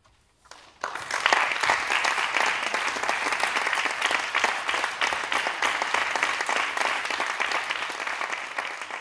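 Audience applauding, breaking out about a second in and continuing steadily at full strength.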